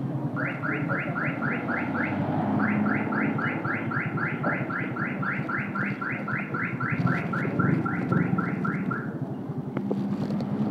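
Electronic alarm sounding in quick rising chirps, about four a second, with a short break about two seconds in, stopping about nine seconds in. A low engine rumble runs underneath.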